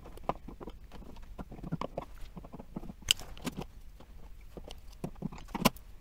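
Irregular small clicks and taps of a plastic three-gang switch wall plate being fitted over the switches and screwed on with a screwdriver, with a sharper knock about three seconds in and another near the end.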